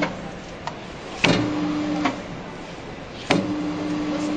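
Sirman meat mincer with its FORMAT S hamburger-forming attachment, its motor switching on with a click and humming steadily in short runs of about a second as patties are pressed out. One run stops just after the start, another comes about a second in, and a third starts near the three-second mark.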